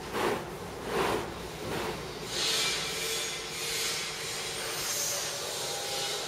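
FQ1600C paper slitting and rewinding machine running, kraft paper feeding over its rollers and being slit into strips. There is a steady hum, three short rushing swells in the first two seconds, then a higher hiss from about two seconds in.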